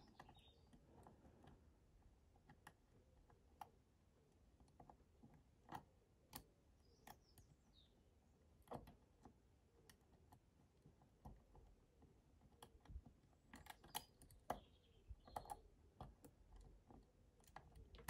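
Faint, irregular metallic clicks of a dimple pick working inside an ABS Avocet dimple lock cylinder, probing for the binding security pin while the lock rests on its security pins. The clicks come more often in the last few seconds.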